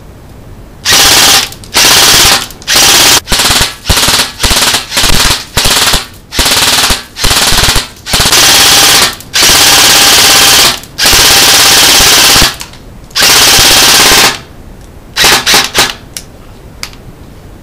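ARES M4A1 airsoft electric rifle firing on full auto in a string of bursts, short ones at first and then longer runs of a second or more, with a few quick short bursts near the end. It is running on a 9.6 V battery through Deans connectors, at a rate the owner puts at about 1100–1200 rounds per minute.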